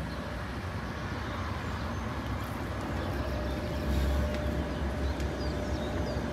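Sheffield Supertram tram running, a steady low rumble that swells about four seconds in.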